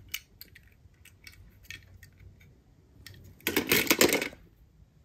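Die-cast toy cars being handled: scattered light clicks, then a loud, short clatter about three and a half seconds in, lasting under a second, like small metal parts knocking together.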